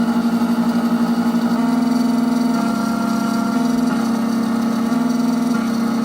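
Triton Plus key machine cutting a key blade at reduced speed: a steady motor whine whose pitch shifts in steps every second or so as the cutter moves along the blade.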